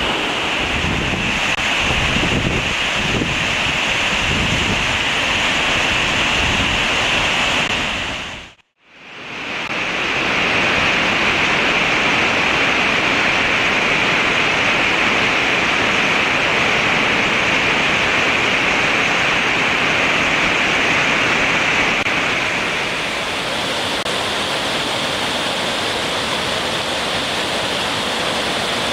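Steady rushing water of a mountain stream cascading over boulders, with wind buffeting the microphone in the first few seconds. The sound breaks off for a moment about nine seconds in, then carries on evenly.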